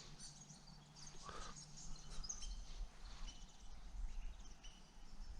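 Small birds chirping faintly in short, scattered calls over a low rumble.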